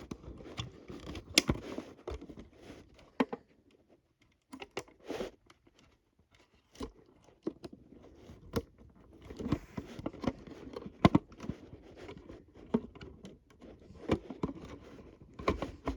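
Handling noises as a battery is got out and fitted to an old smoke alarm: scattered clicks, taps and light rustling of plastic and a battery. The sounds thin out a few seconds in and grow busier again after about nine seconds.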